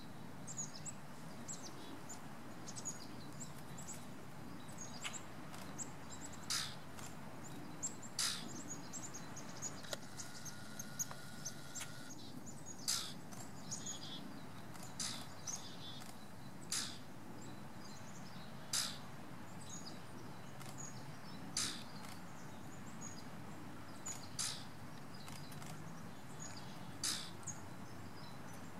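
Wild birds chirping, many small high notes over a soft background hiss, with a sharp, louder single call every two to three seconds. A short steady whistle-like tone sounds for about two seconds partway through.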